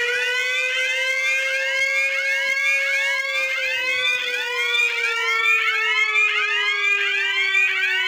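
Emergency-alert (EAS-style) alarm: a steady tone that drifts slowly up and then down, under a dense run of overlapping rising whoop sweeps that repeat over and over.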